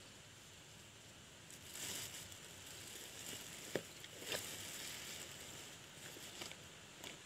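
Faint rustling and crinkling of plastic as hands handle fishing tackle, with a sharp click near the middle and a few lighter ones after it.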